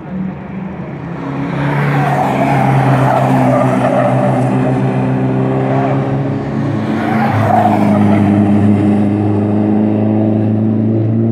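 Race cars being driven on a circuit, with engine and tyre noise swelling twice, about two seconds in and again about seven seconds in.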